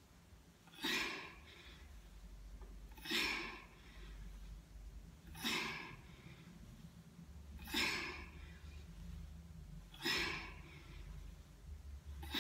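A woman breathing hard as she does weighted dumbbell squats: a short, forceful breath with each rep, about one every two seconds.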